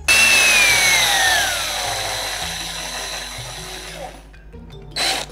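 Cordless drill spinning a computer fan hot-glued to a screw in its chuck: it starts abruptly, then its whine falls in pitch over about two seconds as it winds down, with a rushing noise that fades away by about four seconds in. A short knock near the end.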